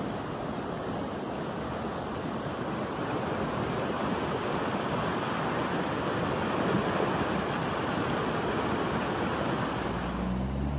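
Fast-flowing floodwater of a creek in spate, a steady rushing of water. Near the end a utility vehicle's engine begins to be heard under it.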